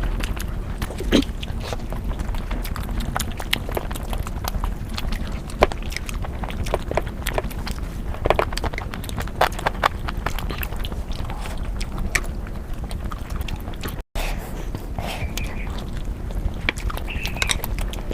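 Close-miked eating sounds: chewing and biting, with many sharp, irregular mouth clicks and smacks over a steady low hum. The sound cuts out for an instant about fourteen seconds in.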